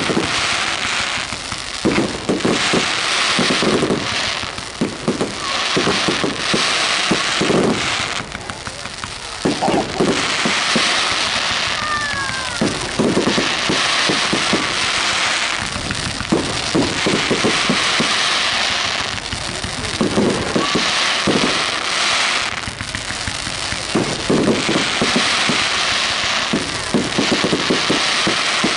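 Firework display: clusters of sharp bangs from bursting shells alternating with spells of dense crackle, going on and off every few seconds. A short whistle sounds about twelve seconds in.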